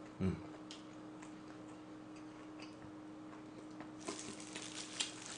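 Faint, scattered mouth clicks and smacks from chewing braised pork trotter (jokbal), growing busier about four seconds in, over a faint steady electrical hum.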